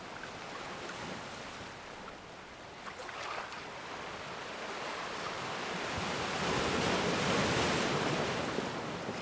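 Ocean waves breaking and washing ashore: a steady wash with light crackles of foam, one wave building from about halfway through to a peak near the end and then easing off.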